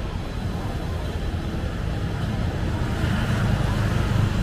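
Street traffic with motor scooters running past at close range; a scooter's engine rumble swells near the end as it passes close by.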